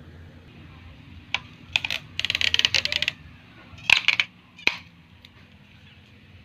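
Clear sticky tape pulled off the roll of a desktop tape dispenser, giving a rapid crackle about two seconds in, then a burst of sharp clicks and a single snap as it is torn off against the cutter.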